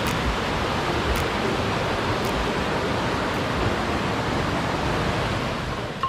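Water rushing steadily over low rock cascades of a waterfall.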